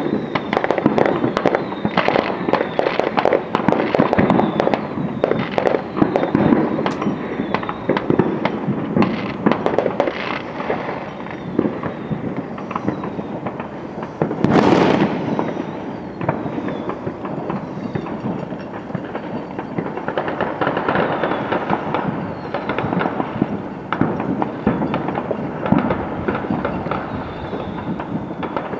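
Many fireworks going off at once: dense, continuous crackling and banging of bursts, with one louder bang about halfway through.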